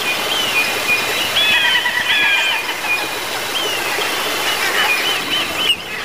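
Small birds chirping over and over, short notes that rise and fall, over a steady rushing hiss like running water, with a brief dropout near the end.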